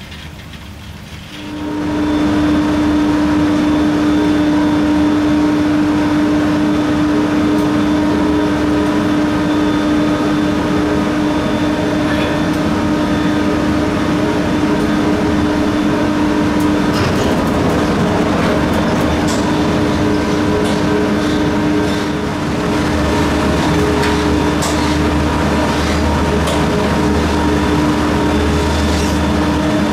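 Station machinery of a 1986 Montaz Mautino detachable gondola running: a steady hum with a strong held tone, with occasional short clicks and clanks as cabins pass through the station. It comes in loud about a second and a half in, after quieter sound from out on the line.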